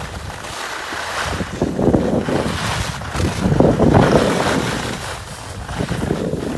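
Wind rushing over a phone's microphone while skiing downhill, with skis hissing and scraping over packed snow. The rush swells and is loudest about four seconds in, then eases.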